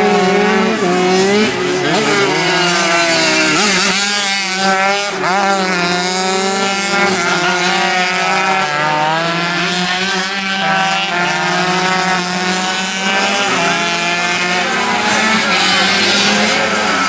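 Several 135cc racing motorcycle engines revving hard, their pitches climbing and dropping as they change gear and pass, over a steady low drone.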